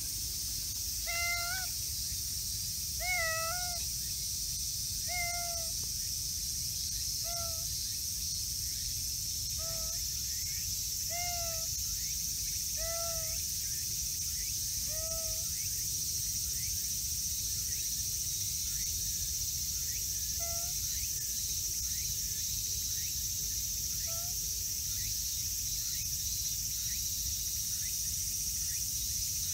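Domestic cat meowing repeatedly, short mews about every two seconds, then two more spaced out near the middle, over a steady high hiss of insects.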